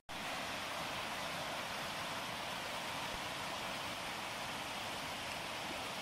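Mountain creek cascading down a rocky channel: a steady, even rushing of water.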